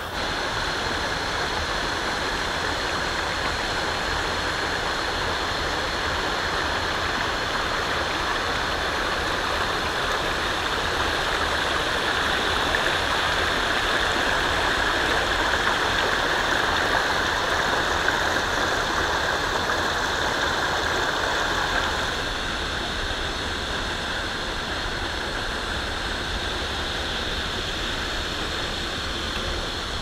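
Water of a shallow rocky stream below a waterfall rushing and splashing over stones, a steady wash of noise that drops slightly in level about two-thirds of the way through.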